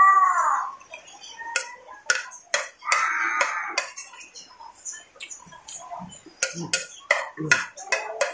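A metal spoon clinking and scraping against a plate as rice is scooped up, in a string of sharp, irregular clicks.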